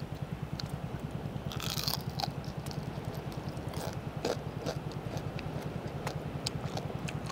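Grilled crab shell being bitten and chewed: small sharp cracks and clicks of the shell, with a brief louder crunch about two seconds in, over a steady low hum.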